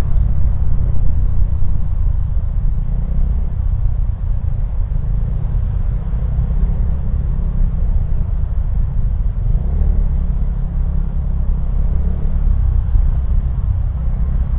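Motorcycle being ridden slowly in traffic: a steady low rumble of engine and road noise.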